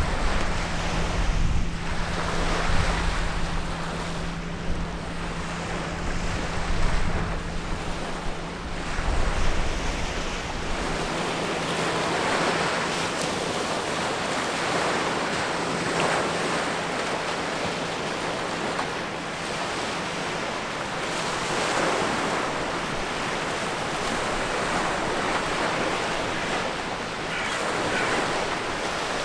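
River water washing in, swelling every few seconds, with gusty wind rumbling on the microphone for the first third. A low, steady ship engine hum lies underneath and fades out about two-thirds of the way through.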